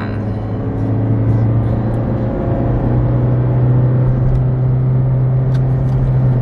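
Car engine and road noise heard from inside the cabin while driving: a steady low hum over a wash of tyre noise, the hum rising slightly in pitch about two and a half seconds in.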